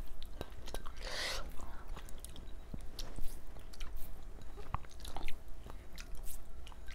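A person chewing chicken momo close to the microphone, with many short wet mouth clicks. There is a brief breathy sound about a second in.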